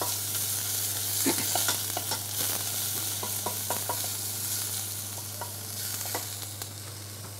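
Chopped onion sizzling as it fries in a stainless steel saucepan, stirred with a utensil that scrapes and taps the pan now and then. The sizzle eases off slightly towards the end.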